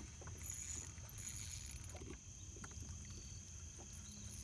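Faint low rumble with a few soft ticks and small splashes as a hooked bluegill is played at the water's surface, and a thin steady high tone in the background.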